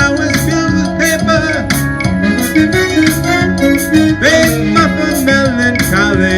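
Live band music between sung lines: a steady beat under held chords, with a lead line that bends and wavers in pitch.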